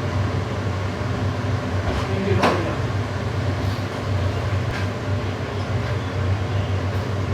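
Steady low hum with a background rumble, broken by a sharp knock about two and a half seconds in and a few fainter clicks.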